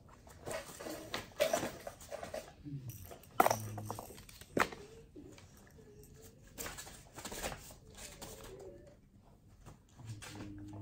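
Vibrating pager collar buzzing: a short steady buzz a few seconds in and a longer one near the end. Between the buzzes a dog whines softly with a wavering pitch, and a few sharp knocks and rustles are heard, the loudest a little after the first buzz starts.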